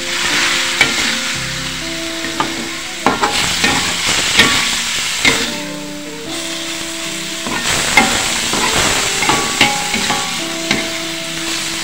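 Sliced carrot, spring onion and celery stir-frying in hot oil in a wok: steady sizzling, broken by frequent sharp scrapes and clinks of a metal spatula against the pan.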